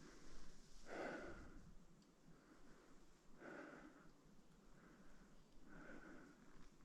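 Faint heavy breathing of a hiker climbing uphill, close to the microphone, a breath about every two and a half seconds.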